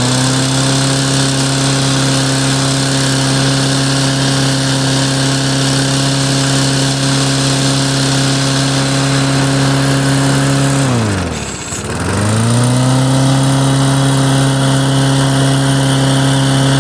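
Briggs & Stratton Classic single-cylinder lawn mower engine running fast and steady. About eleven seconds in its speed falls sharply almost to a stall, then it picks straight back up to full speed.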